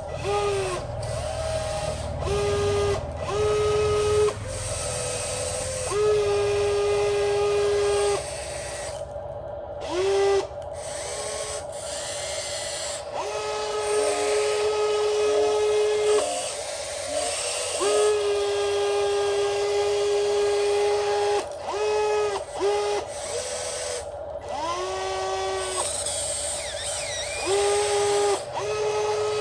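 Electric motors of a radio-controlled model whining as they are driven in repeated bursts. Each burst glides quickly up to a steady high pitch, holds from under a second to several seconds, then stops, over a constant steady hum.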